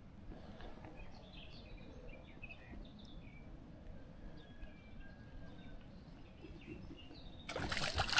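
Small birds chirping now and then over a faint, even background noise. Near the end, a loud burst of noise sets in and lasts more than a second.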